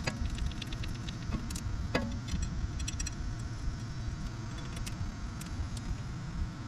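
Light metallic clicks and clinks from tools and parts being handled, with two sharper knocks, one at the start and one about two seconds in, over a steady low rumble.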